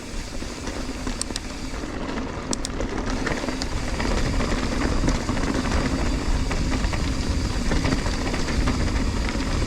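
Mountain bike rolling along a dirt trail: tyre rumble and rattling from the bike, getting louder over the first few seconds as speed builds, with wind on the microphone.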